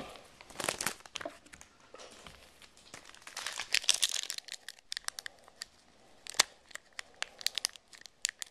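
A trading-card pack's wrapper being crinkled and torn open by hand, in two bouts, one near the start and one around three to four seconds in, with a few sharp clicks near the end.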